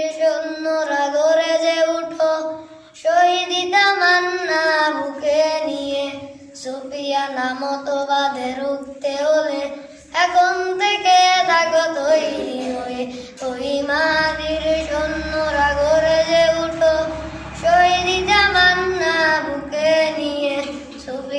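A boy singing a Bengali Islamic song in a high child's voice, phrase after phrase with short pauses for breath.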